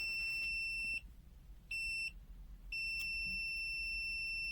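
FUYI FY129C multimeter's built-in buzzer sounding a steady high-pitched beep as its test leads read near zero ohms. The beep cuts out about a second in, gives one short beep, then comes back and holds steady.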